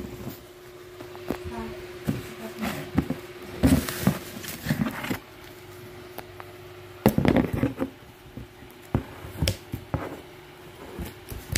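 Cardboard box and plastic strapping being handled and cut with a knife and scissors: irregular scrapes, rustles and sharp clicks, with louder bursts of scraping about four and seven seconds in. A steady low hum runs underneath.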